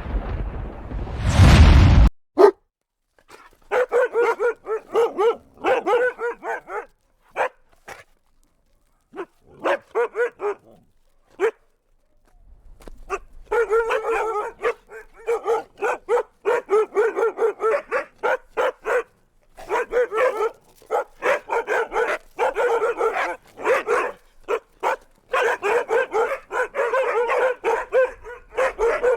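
Siberian huskies barking and yipping in quick runs of short calls, broken by pauses, then barking almost without a break over the second half. It opens with a loud rushing rumble that rises and cuts off about two seconds in.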